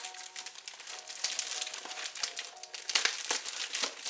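Plastic mailer bag crinkling and crackling as a tightly packed box is pulled out of it, with a burst of louder crackles about three seconds in.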